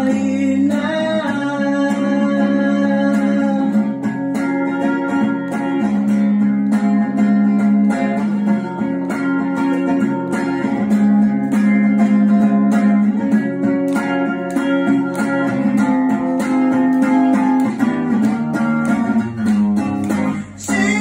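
A song performed live: a man singing over his own steadily strummed guitar, with the voice dropping out for a while and the guitar carrying on alone.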